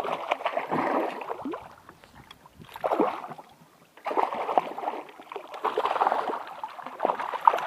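Water splashing and sloshing in irregular bursts as a hooked brook trout thrashes at the surface while it is brought in.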